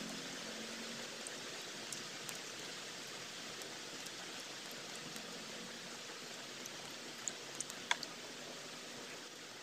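Steady rain falling as an even hiss, with a few sharp drip taps about seven to eight seconds in.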